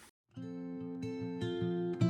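Background music starts after a brief moment of dead silence: a plucked acoustic guitar playing notes, then strumming.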